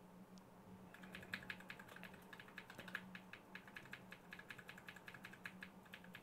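Computer keyboard key tapped quickly and repeatedly, several light clicks a second, starting about a second in. The key is being hammered to get into the BIOS while the PC reboots. A faint steady hum runs underneath.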